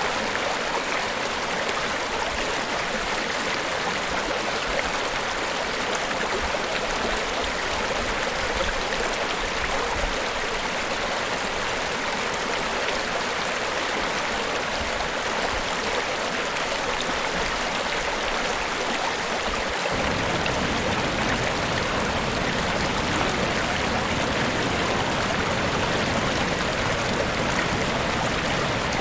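Niagara Falls' water falling in a steady, continuous rush of noise. About two-thirds of the way through, the sound abruptly gains a deeper low rumble.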